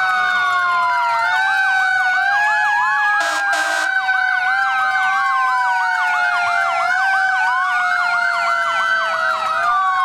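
Several emergency-vehicle sirens sounding together: slow wails rising and falling over a few seconds, overlaid with fast yelps. A vehicle horn blasts briefly about three seconds in.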